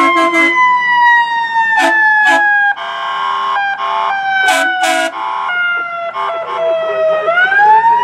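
Fire department paramedic squad's siren sliding slowly down in pitch, then winding back up near the end, with several short horn blasts in between.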